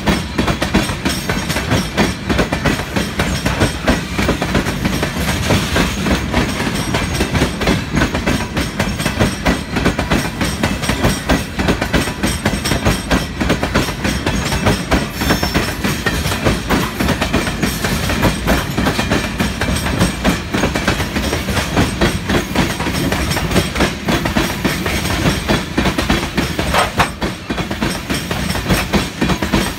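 Freight cars of a Union Pacific gravel train rolling past, their steel wheels clicking over the rail joints in a steady stream with a continuous rumble.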